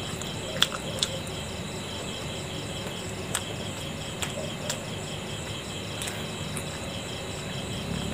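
Crickets chirping steadily in a high, pulsing trill, with a few sharp clicks from someone eating steamed momo dumplings, the loudest about half a second and a second in.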